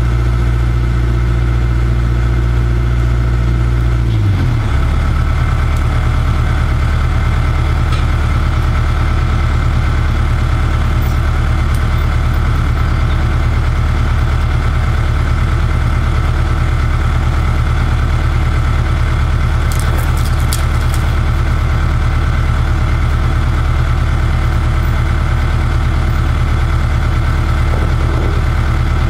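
An engine idling steadily, its low pitch dropping and settling about four seconds in.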